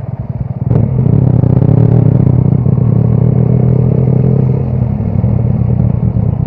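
Motorcycle engine under hard throttle, rising sharply in level about a second in after a brief click and then holding a steady high-revving note.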